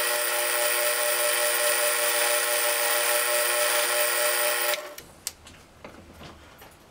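Lathe cutting tool chamfering the inner edge of a nut's bore at 45 degrees, making a steady, high-pitched ringing squeal. It stops abruptly just under five seconds in, leaving only a few faint clicks.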